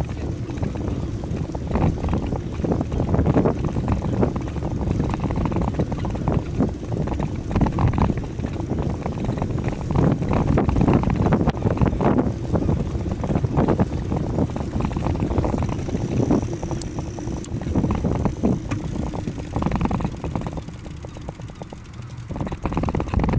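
Wind buffeting the microphone of a handlebar-mounted camera on a moving bicycle, a dense low rumble that rises and falls unevenly with road noise under it. It drops away for a couple of seconds near the end.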